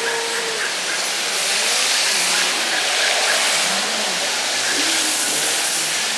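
Traffic on a wet street: a steady hiss of car tyres on wet asphalt, swelling a little about two seconds in.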